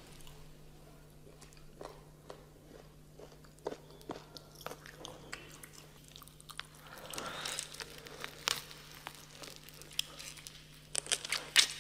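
Close-miked mukbang eating sounds: a woman biting and chewing into a whole roasted dog's head. Scattered short crunches come throughout, busier in the second half, over a faint steady hum.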